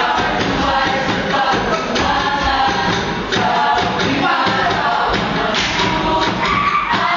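Samoan group song: many voices singing together in chorus over a steady, fast percussive beat.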